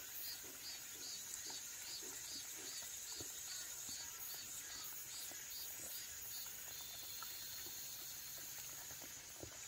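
Dog licking and chewing at a cherry tomato held in a hand, soft wet smacks, under a steady high drone of insects. A high chirp repeats about three times a second and gives way to a steady whine about seven seconds in.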